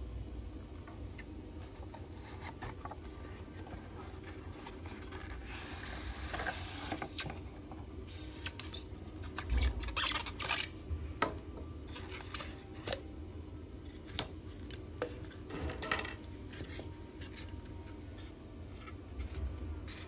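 Polystyrene foam packaging and a plastic toy being handled: foam rubbing and scraping against cardboard and plastic as an insert is worked out of a box and a toy tank is pulled from its foam cradle. The sharpest, loudest scrapes and knocks come in a cluster about halfway through.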